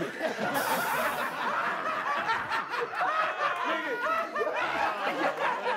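Several people laughing at once after a joke, with overlapping voices and snickers.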